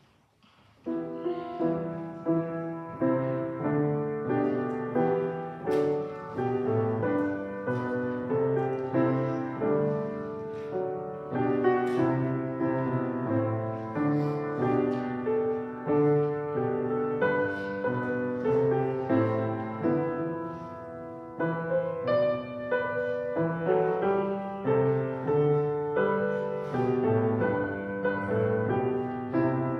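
Piano playing a hymn, starting about a second in with a regular succession of chords.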